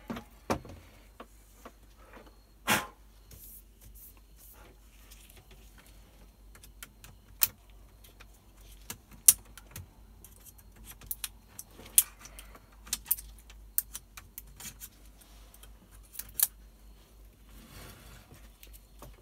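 Metal frame of a Dell P2415Q monitor panel being unclipped by hand: a scattered series of sharp clicks and light metallic rattles as its snap tabs pop free, busiest and loudest in the second half.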